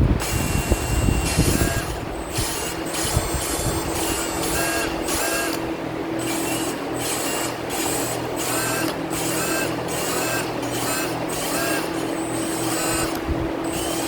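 Valve of a Kawasaki FR541V cylinder head being spun against its seat by an electric drill with fine lapping compound: a steady drill hum with a grinding scrape that repeats about every half second as the valve seats in.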